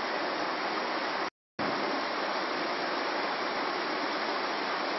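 Steady rushing of river water flowing over rocks. It breaks off into silence for a moment about a second and a half in.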